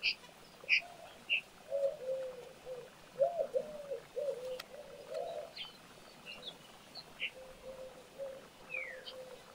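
A pigeon cooing in a run of low, repeated notes from about two seconds in to about five seconds in. Short, high chirps from small birds are scattered throughout.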